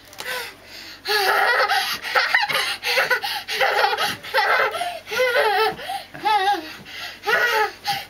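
A toddler laughing hard in repeated high-pitched peals, starting about a second in.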